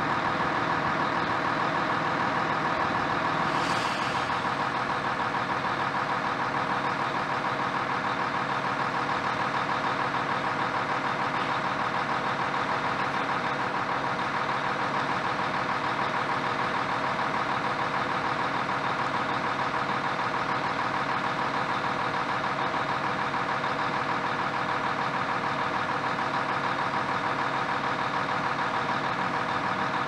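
Heavy construction machinery running steadily: an engine drone at a constant pitch. A faint brief hiss comes in about four seconds in.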